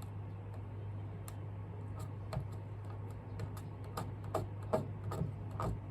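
Light clicks and taps, sparse at first and coming several a second in the second half, over a steady low hum.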